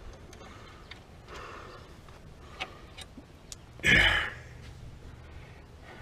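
Scattered sharp clicks and light taps of hand tools on metal, as caliper bolts are worked loose on a Polaris RZR's front brake. About four seconds in there is one short, loud rush of noise, like a sharp exhale.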